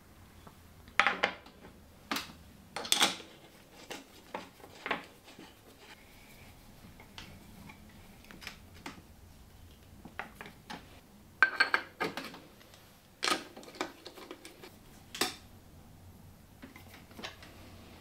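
Irregular metallic clinks and knocks as a Race Face crank arm is fitted onto an ISIS bottom bracket spindle and its crank bolt is turned with a hand tool.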